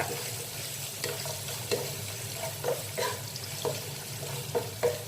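Crushed ginger and garlic frying in hot sunflower oil in a non-stick pot, a steady sizzle with a few short knocks of a spoon stirring against the pan. A steady low hum runs underneath.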